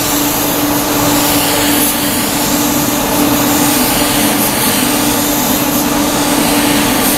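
Compressed-air gravity-feed spray gun hissing as it sprays primer-filler onto a car panel, over the steady hum of the paint booth's ventilation.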